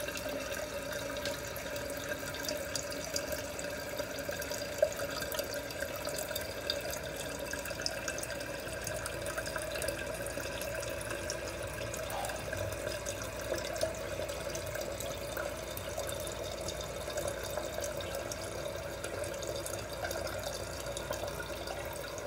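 TOTO toilet tank refilling after a flush through its freshly cleaned fill valve: a steady rush of water running into the tank.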